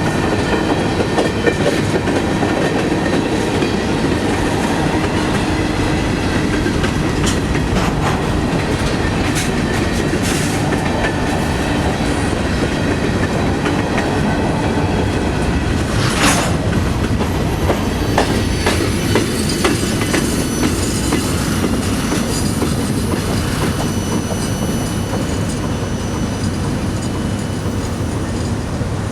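CSX freight train's cars rolling past, steel wheels clacking steadily over the rail joints with some metallic wheel squeal. A sharp metallic noise comes about halfway through, and the sound eases slightly near the end.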